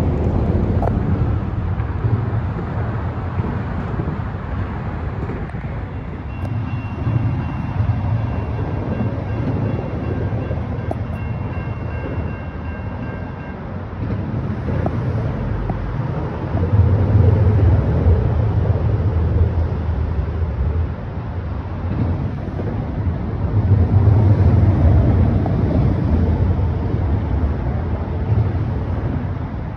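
Highway traffic crossing the overpass above: a steady low rumble that swells twice as heavy vehicles pass over the bridge, with a faint thin high tone held for several seconds in the middle.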